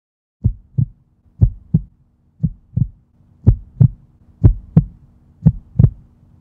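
A heartbeat-like sound effect: deep double thumps, lub-dub, repeating about once a second over a faint low hum. It starts about half a second in.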